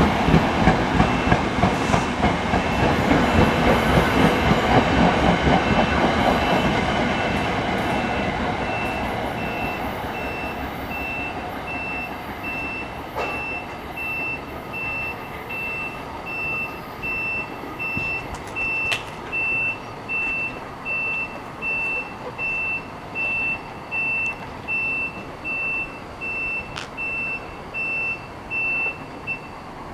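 Passenger cars of an Amtrak Keystone train speeding past, the wheels clattering steadily, then fading away as the train recedes. From about 13 seconds in, an electronic beeper sounds a single high tone about once a second until near the end.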